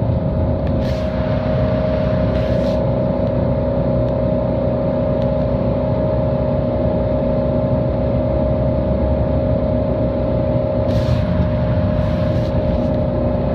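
Honolulu city transit bus heard from inside the cabin, its engine and drivetrain running steadily with a constant whine over a low rumble. A few short hisses sound about a second in, again soon after, and near the end.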